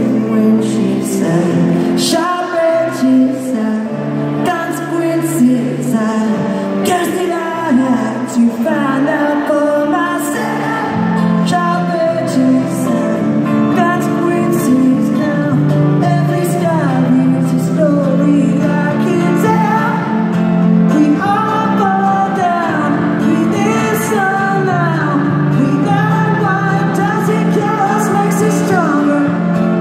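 Live rock band performing in an arena: singing over guitar, in a steady, unbroken flow of music.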